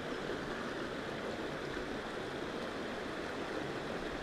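A shallow, rocky creek rushing steadily over stones and riffles.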